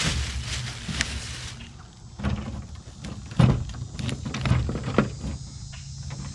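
Plastic bag rustling for the first second and a half as mackerel carcasses are pulled out. After that, scattered clinks and knocks of a wire crab trap and its bait cage as the bait is stuffed in, the sharpest about halfway through.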